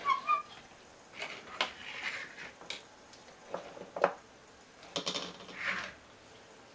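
Light clinks, taps and knocks of glass and metal coffee-making gear being handled, opening with a short ringing clink.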